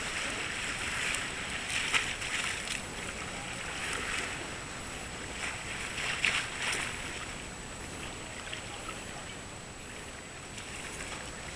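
Harbour water lapping and sloshing gently against the quay, a steady wash with a few louder splashes about two and six seconds in.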